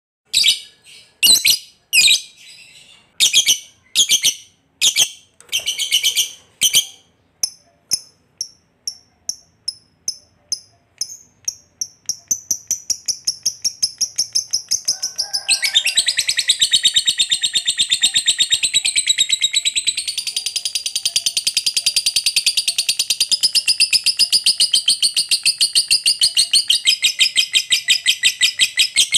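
Lovebird calling: a few loud separate chirps, then chirps that come faster and faster until, about halfway through, they run together into a long, fast, rattling trill, the 'ngekek panjang' chatter prized in lovebirds, which turns louder and denser soon after.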